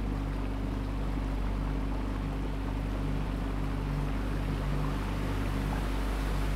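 A small motorboat's engine running steadily, a constant low hum, with the rush of water and wind along the boat.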